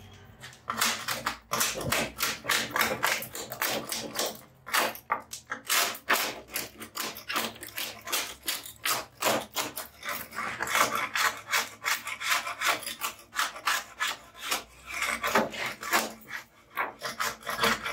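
A homemade hand scraper scraping cured resin flash off the rim of a granite composite sink in its fiberglass mold: quick rasping strokes, several a second, with a short break about four seconds in and another near the end.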